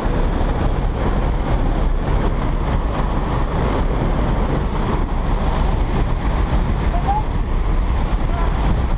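Steady, loud rush of wind and propeller-engine noise through the open door of a small jump plane in flight.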